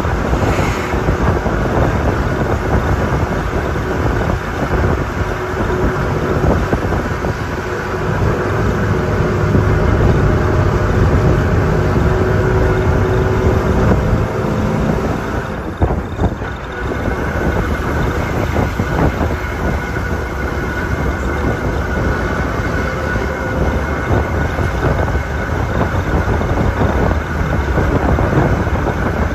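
Steady noise of a moving road vehicle heard from inside: engine running and tyres on a rough dirt road, with a low rumble and a faint engine hum.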